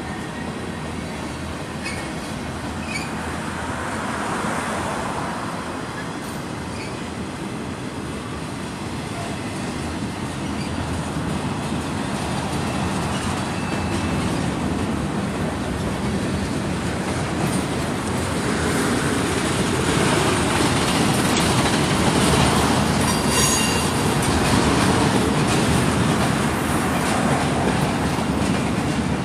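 Freight train of flatcars rolling past: a steady rumble and clatter of steel wheels on the rail, with a few brief high wheel squeals, growing louder in the second half.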